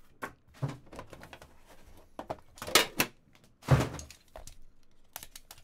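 Trading cards and their packaging being handled on a table: a series of short thumps, scrapes and clicks, the loudest two about three and four seconds in.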